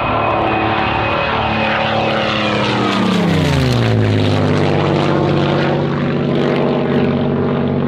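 Aircraft flying past: a steady engine drone made of several tones whose pitch drops sharply about three seconds in as it passes, then holds lower.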